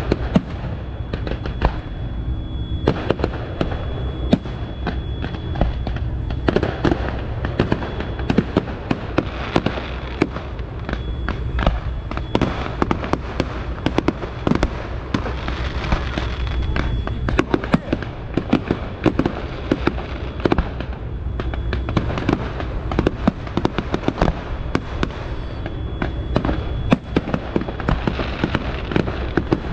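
Fireworks display: shells and low-level mines bursting in a rapid, irregular stream of bangs and crackles over a steady low rumble.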